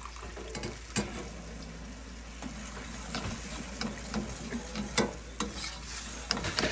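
Metal spoon stirring a thick, sweet barbecue-style sauce in a small frying pan on a low flame. The sauce is sizzling steadily, and the spoon scrapes and clinks against the pan several times, sharpest about a second in and about five seconds in.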